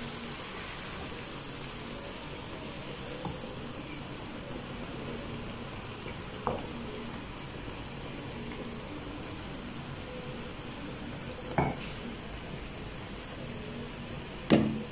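Crepe batter sizzling as it fries in a hot oiled frying pan on a gas burner, a steady sizzle. Three sharp metal knocks of the pan and utensils break in, the loudest near the end.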